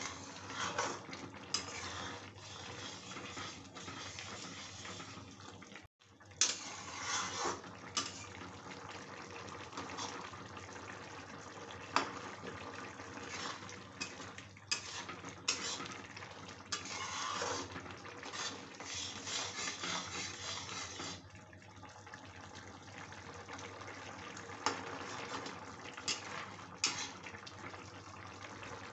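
Steel spatula stirring a thin potato and soya-chunk curry in a metal kadhai: wet sloshing of the gravy in irregular swells, with occasional sharp clinks of the spatula against the pan.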